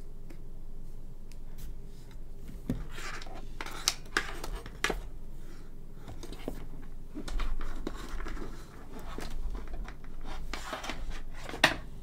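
Hands handling a coiled keyboard cable on a desk mat: scraping and rustling with several sharp clicks, the loudest click near the end.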